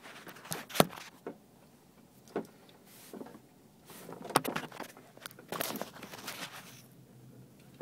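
Scattered clicks, knocks and rustling from handling in a helicopter cockpit, with the engine not yet running. The sharpest click comes about a second in, and a longer stretch of rustling follows in the second half.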